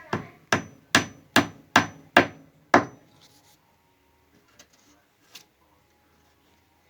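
A hammer tapping a wooden plug into a screw hole in wood: seven sharp strikes, about two and a half a second, over the first three seconds, then a few light knocks.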